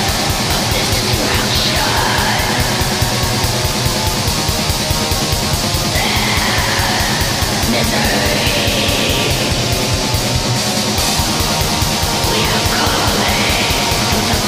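Black metal song playing loud throughout: very fast, even drumming under dense distorted guitars, with harsh screamed vocals that come in at several points.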